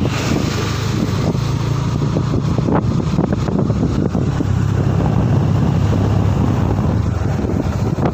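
Wind rushing over the microphone and a steady engine drone from travelling along a road, as a small pickup truck passes close alongside.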